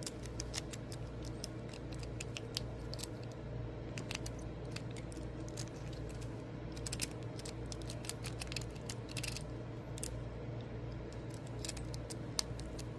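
Lock picks working inside Master Lock padlocks: many small, irregular metallic clicks and scrapes as the pins are picked.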